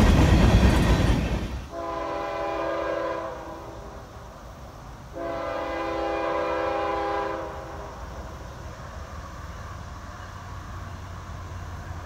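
Freight cars rolling past, cut off about two seconds in; then an approaching diesel freight locomotive sounds its air horn in two long blasts, a chord of several tones, with the low rumble of the train after.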